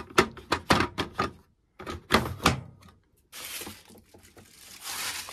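A quick run of sharp clicks and knocks from a washing machine being handled, then a steady hiss from about three seconds in that swells near the end.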